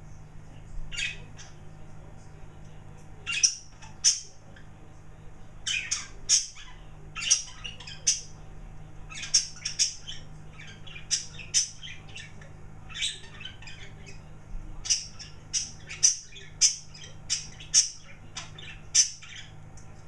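Pet birds chirping loud: many short, sharp, high calls, one or two a second, some coming in quick clusters.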